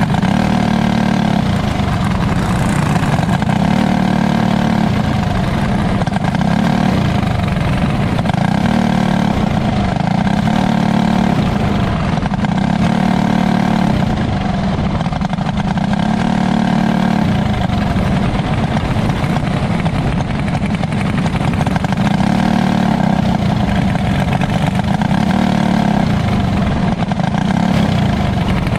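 A winged dirt kart's small engine, heard from on board at racing speed. Its note rises and drops every few seconds as the throttle goes on down the straights and comes off into the turns.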